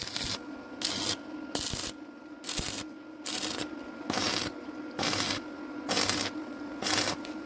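Hand-tool strokes scraping steel pipe, a file or wire brush worked back and forth: about ten rasping strokes, roughly one a second, over a steady low hum.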